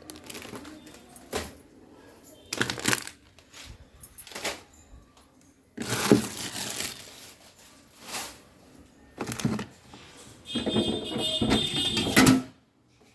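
Plastic bags crinkling and containers knocking as items are taken out of a refrigerator and set down, in about eight separate bursts with quiet gaps between, the longest near the end.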